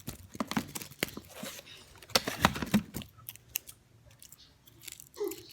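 Sticky tape pulled off its roll and cut, a run of crackles and sharp clicks for about three seconds, then it stops.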